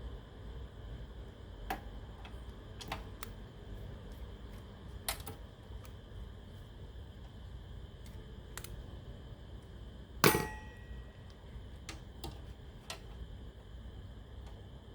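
Irregular small clicks and taps from handling a cassette player's plastic parts and small tools during repair, with one louder knock about ten seconds in that rings briefly.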